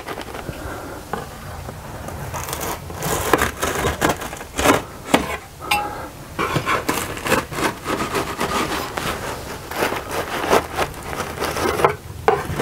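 Knife scraping and cutting at a papery wasp nest where it is stuck fast to a wooden shed ceiling: irregular rasping, crackling strokes, growing busier after the first couple of seconds.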